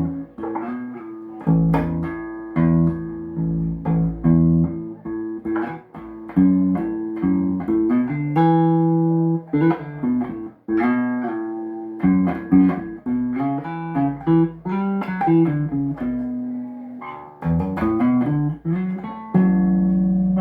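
Golden electric bass played solo for a sound test after servicing: a steady run of plucked notes with sharp attacks, some quick and some held and left ringing, with a few notes sounded together.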